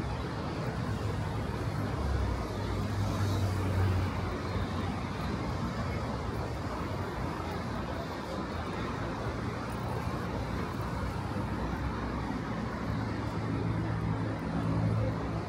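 Road traffic: cars passing steadily, with a low engine hum that swells about a second in and again near the end.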